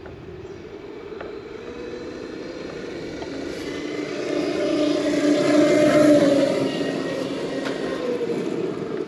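Traxxas X-Maxx electric RC monster truck at full throttle on 8S with high-speed gearing: a motor and drivetrain whine with tyre noise on gravel. It grows louder as the truck approaches, passes about six seconds in, then fades with a drop in pitch.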